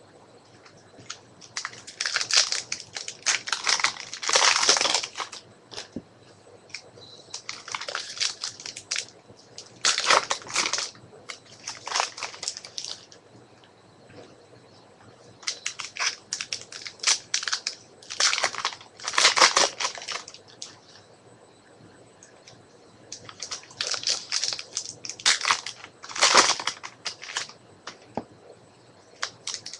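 Football trading cards being handled by hand, with the packs' foil wrappers crinkling and the cards rustling as they are slid and shuffled through. The sound comes in bursts of several seconds with quieter pauses between them.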